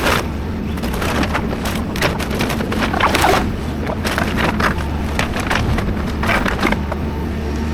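Excavator's diesel engine running steadily under an irregular series of cracks and crashes as building material is broken and dropped during demolition.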